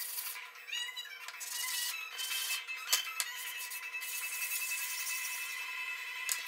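Background music over the scratchy hiss of a metal hand-plane part being rubbed back and forth on wet sandpaper, with a sharp click about three seconds in and another near the end.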